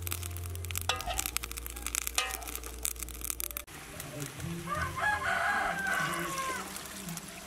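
A rooster crowing once, a long call held for about two seconds past the middle. Before it, in the first half, come dense crackling clicks from the cooking fire.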